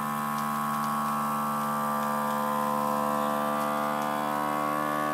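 FoodSaver vacuum sealer's pump running steadily, drawing the air out of a vacuum-seal bag packed around a mylar bag of dried fruit and nuts. The hum starts to climb slightly in pitch near the end as the bag pulls tight.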